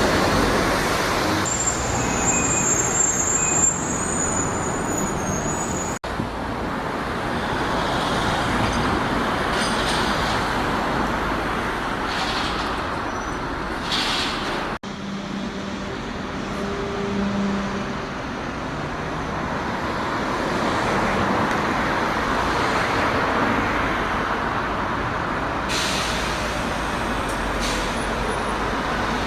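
Buses and road traffic running, with a high brake squeal about two seconds in and short hisses of air. The sound cuts off abruptly twice where one shot gives way to the next.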